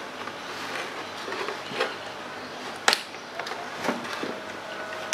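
Scissors cutting a Barbie doll free of its plastic box packaging: a few short, sharp snips and clicks, the loudest about three seconds in, over a steady hiss.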